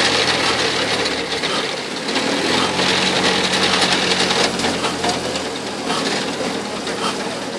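Old Pontaubault stationary engine being turned over without catching: a fast, steady mechanical clatter from its crank and valve gear over a low hum. The crew suspect it has lost its fuel prime or run its tank dry.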